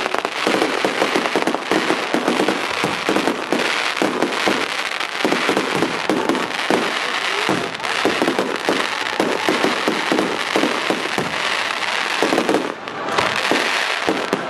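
Aerial fireworks going off in a dense, continuous barrage of rapid bangs and crackling pops, with a short lull about two seconds before the end.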